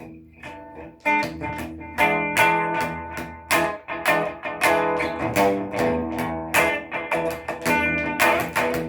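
Raven Telecaster-copy electric guitar being played: picked chords and single notes struck two or three times a second, with the strongest attacks from about a second in.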